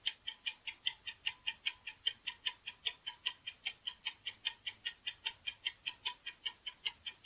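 Clock-tick countdown timer sound effect: fast, even ticking, several ticks a second, marking the answer time.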